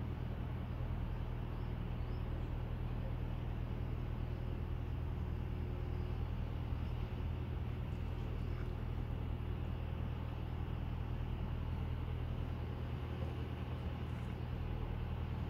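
Steady low hum and rumble of outdoor background noise, unchanging throughout, with no distinct events.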